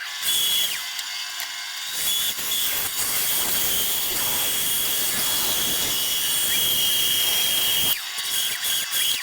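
Bandsaw running with a steady high whine, its blade cutting into a wooden spatula blank from about two seconds in until near the end. These are relief cuts made up to a curved line.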